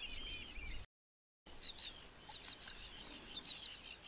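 Faint bird chirping: short, high calls repeated several times a second. The sound drops to dead silence for about half a second, about a second in.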